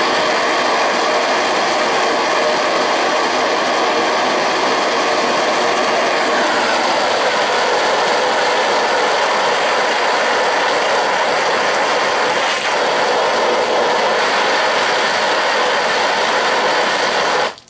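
A hard jet of water from a hose nozzle set to 'jet' blasting steadily into a corner of a painted Tyvek tarp, strong enough to cut into the paint; the spray cuts off suddenly near the end.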